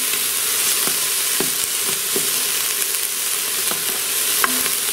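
Diced onions and green bell pepper sizzling in butter in an electric pressure cooker's inner pot, the onions starting to brown. A spoon stirs the vegetables, with a few light clicks and scrapes against the pot.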